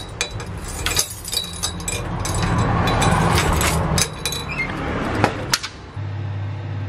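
A bunch of keys jangling and clinking while a key is fitted into a door's cylinder lock and turned, with a run of sharp clicks. Near the end a steady low hum takes over.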